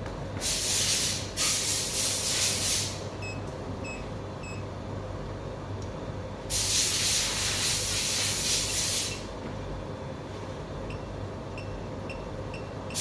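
Three bursts of loud hiss, two back to back near the start and a longer one in the middle. Between them are short, high electronic beeps, four in a quick row and later five fainter ones, typical of a DPS8005 module's key beeps as its buttons are pressed.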